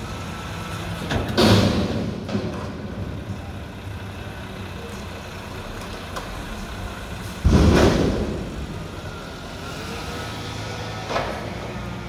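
Mack McNeilus front-loader garbage truck running with its lift arms working. There are loud metal bangs from the dumpster as it is emptied over the hopper, about a second and a half in, and as it is set back down, about seven and a half seconds in. The engine revs up near the end as the truck pulls away.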